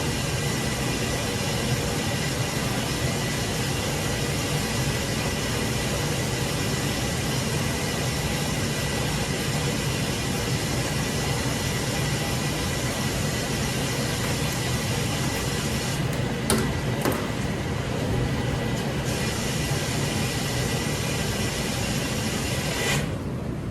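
Steady machine running noise with a constant high whine through it, and two short knocks about two thirds of the way through.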